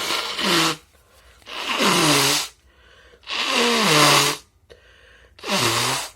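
A person blowing their nose hard four times in a row, each blow about a second long with a low hum falling in pitch through it.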